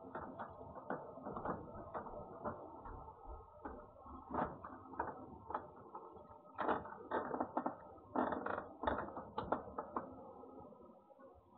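Irregular crunching clicks, a few a second and denser in the second half: a cat chewing dry food, heard through a security camera's microphone.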